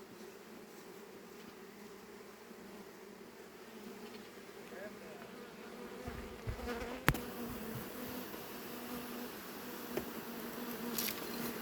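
Honeybees buzzing in a steady hum around an open hive. A sharp click about seven seconds in and a brief hiss near the end.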